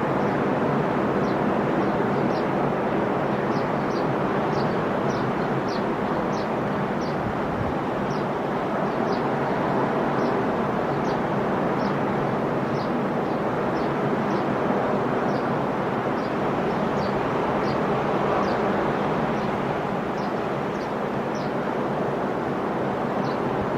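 Sea surf rolling steadily onto the shore, a continuous rushing wash of waves, with many short, high chirps scattered over it.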